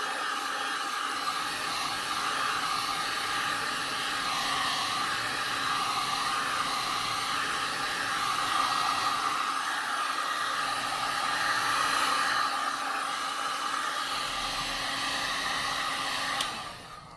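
Hot-air blower running steadily, a constant rush of air over a low motor hum, heating a phone's back cover to soften its adhesive. It switches off shortly before the end.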